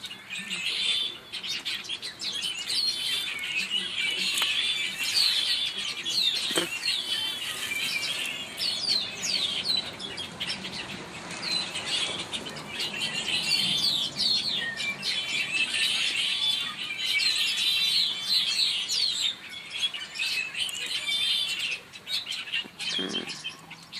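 A flock of small birds chirping together in a tree, many short overlapping calls in a continuous chatter.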